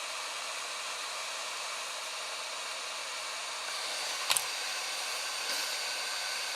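An 8858 hot-air rework station blowing a steady hiss of hot air from its nozzle onto the old USB connector's solder to desolder it. One sharp click is heard about four seconds in.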